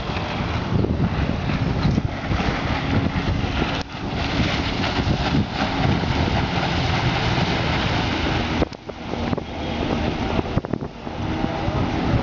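Suzuki 15 hp four-stroke outboard running at speed on a small catamaran, mixed with hull spray and heavy wind noise on the microphone. The sound dips briefly twice.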